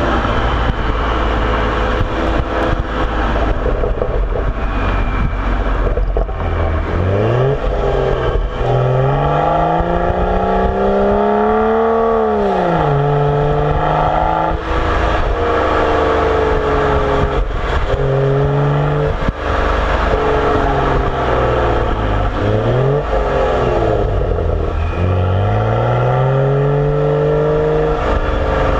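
BMW 335xi's turbocharged 3.0-litre inline-six breathing through a Corsa axle-back exhaust on a stock car. It holds a steady note at first, then from about six seconds in accelerates several times, the note climbing in pitch and dropping back sharply between pulls.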